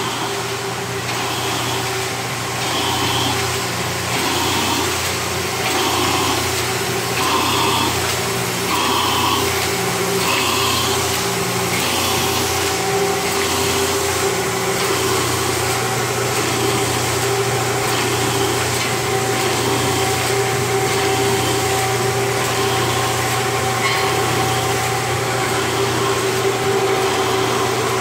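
Harris Macey Omnibinder 9-pocket collator running: a steady motor hum with a regular repeating beat of the mechanism about every second and a half, most distinct in the first half.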